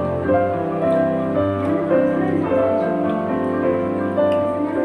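Background music of held, overlapping notes that change every second or so.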